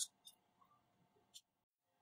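Near silence, with a faint click at the very start and another a little over a second in: small plastic and metal parts of a hot glue gun being handled as it is taken apart.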